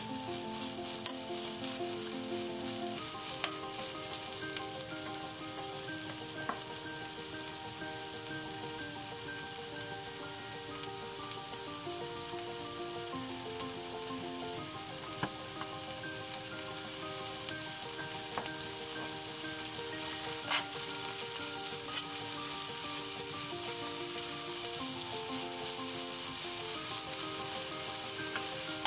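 Sliced manganji peppers and garlic sizzling in olive oil in a nonstick frying pan as a spatula stirs them, with a few light clicks of the spatula against the pan. Soft background music of slow, held notes plays throughout.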